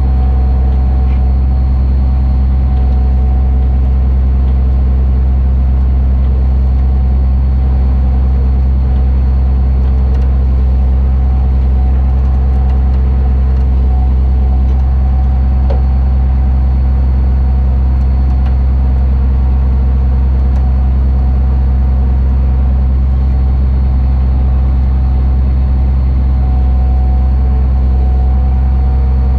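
Tow truck's engine running at a steady speed, with a faint steady whine over it, while it powers the winch that pulls a tipped pickup upright.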